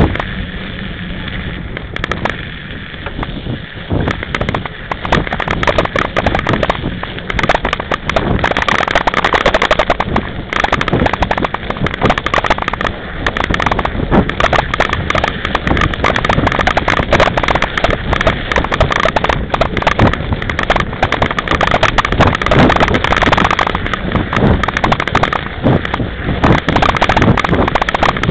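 Mountain bike jolting over bumpy snow: a dense, continuous rattle of knocks and clicks from the bike and its front-mounted camera, with the fat front tyre crunching through the snow. A little quieter for the first few seconds, then louder and busier.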